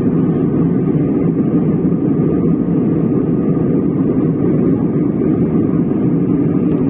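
Steady low cabin noise of a passenger airliner in cruise flight, an even rushing hum heard from inside the cabin.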